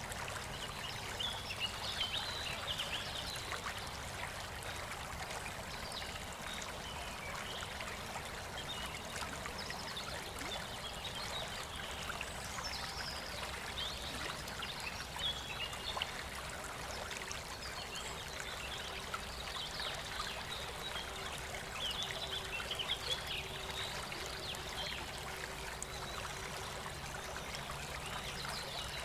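Water running steadily in a stream, with birds chirping in short bursts now and then.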